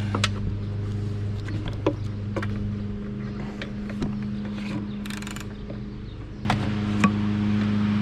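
Scattered clicks, taps and knocks of mower parts being handled and fitted back together, with a short rattle about five seconds in and two louder knocks near the end, over a steady low hum.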